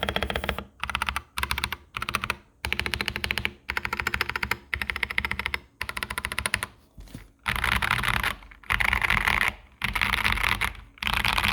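Fast typing on an Austin mechanical keyboard with Boba U4T tactile switches and doubleshot PBT keycaps, tape-modded and case-foamed. Rapid keystroke clatter comes in runs of about a second, each broken by a short pause.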